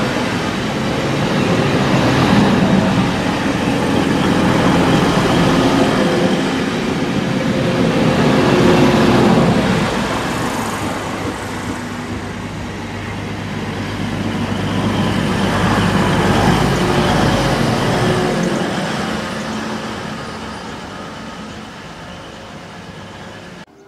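A Class 185 diesel multiple unit drawing away with its Cummins engines running: a steady droning hum over wheel-on-rail rumble. It swells twice, then fades as the train recedes, and cuts off abruptly near the end.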